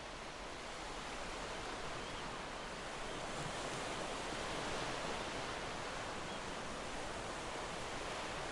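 Sea surf washing ashore: a steady hiss of waves that swells a little about halfway through.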